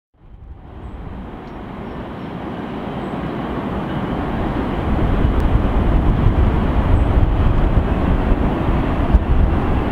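Rumble of an approaching train, growing louder over the first five seconds and then holding steady.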